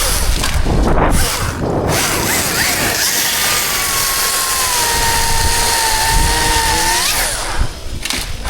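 Chainsaw running steadily, with a whining tone that sags a little in pitch for a few seconds and then rises again near the end.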